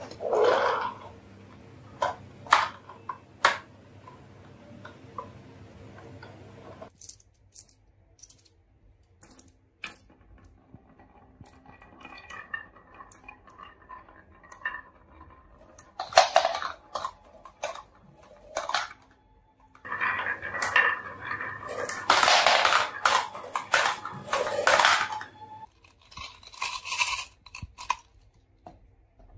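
Glass marbles rolling down a carved wooden zigzag track, clicking against the wood and against each other. Scattered single clicks give way to several clattering runs, the longest a little after two-thirds of the way through.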